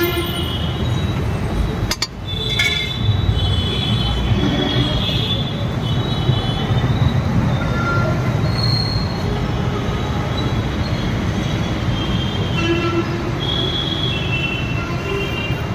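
Steady, loud street noise with short high-pitched squeals scattered through it, dipping briefly about two seconds in.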